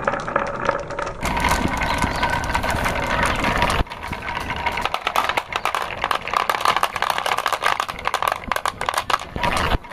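Marbles rolling down a carved wooden track, rattling through its cups with dense, uneven clicks against the wood and each other over a rolling rumble.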